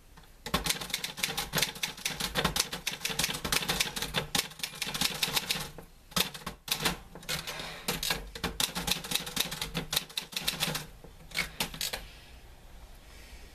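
Typewriter keys being struck in rapid runs of typing, with a brief pause partway through and a few last strikes before it goes quiet near the end.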